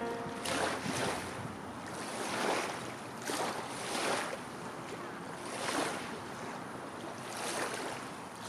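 Small waves lapping and washing onto a pebble beach, a soft rush of water every second or two.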